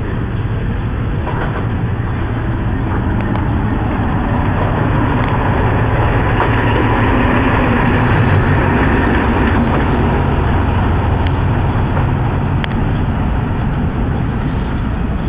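Diesel locomotive passing close by, its engine drone and running noise growing louder to a peak about halfway through, then easing off.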